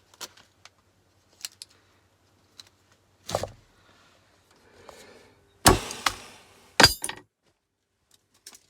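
Scrap metal parts being worked by hand: light clicks and clinks, then a handful of sharp metallic knocks, the loudest two about two-thirds of the way in.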